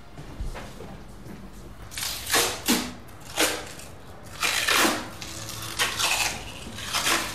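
A run of short rustling, scraping handling noises, about seven in quick succession, the loudest about halfway through.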